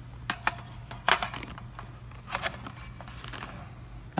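Packaging and parts handled in a rifle box: a few short sharp clicks and plastic crinkles, the loudest about a second in.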